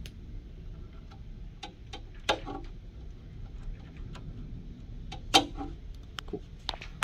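Scattered small plastic clicks and taps of wire connectors being handled and pushed into the sockets of a 3D printer's mainboard, with two louder clicks about two seconds in and about five seconds in.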